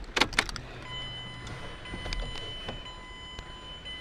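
Car key jangling and clicking into the ignition of a 2010 Mazda 5 and being turned to on, in the first half second. About a second in, a brief low hum and a steady high-pitched whine start as the car's electrics come on.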